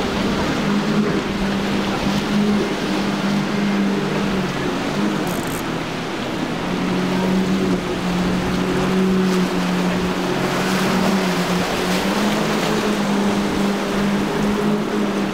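Four outboard motors on a center-console fishing boat running hard at speed, a steady engine drone that eases slightly about six seconds in and picks up again, over the rush of wake spray and choppy sea.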